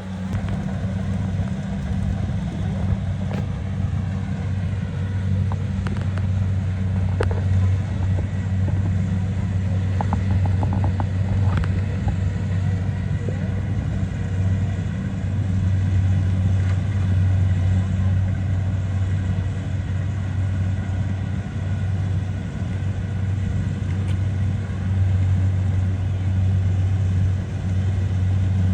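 Kubota DC70 rice combine harvester's diesel engine running at a steady speed: a constant low hum that holds level throughout.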